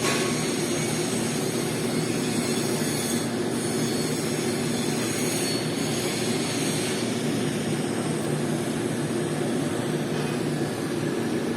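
Steady welding noise on stainless steel pipe: an even hiss over a constant low hum, with no breaks or changes.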